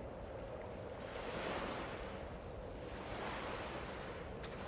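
Gentle sea waves washing in, a soft steady wash that swells and eases a couple of times.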